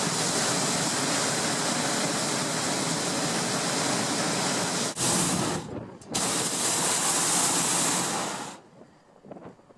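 Hot-air balloon's propane burner firing with a loud, steady roar, in two long blasts with a short break just under six seconds in, and cutting off about eight and a half seconds in.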